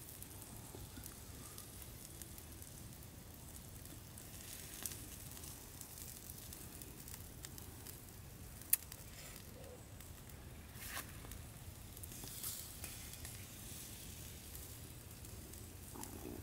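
Bullfrogs sizzling on a grill over an open fire, a low steady hiss broken by scattered sharp crackles, the loudest about halfway through.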